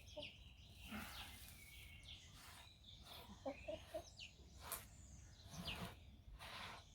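Faint bird calls: scattered short high chirps and a quick run of lower notes about halfway through.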